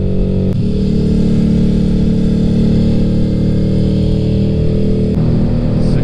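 Honda V-Twin Magna 250's V-twin engine running under way, heard from on the bike. The engine note steps down about half a second in. Near the end the bike rides into a road tunnel and the sound changes.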